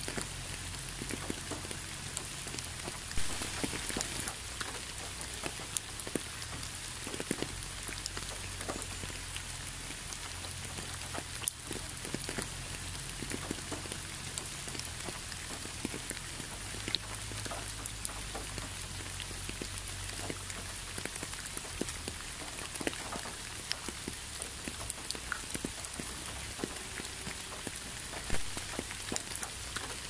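Steady rain falling, with many individual drops ticking out of the even hiss, over a low steady rumble.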